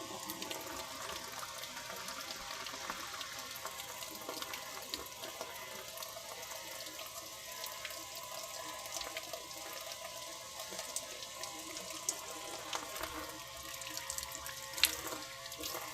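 Water running steadily into a washing machine through its inlet, fed by a self-priming booster pump that runs with a steady hum underneath. A few light ticks, with one sharper tick near the end.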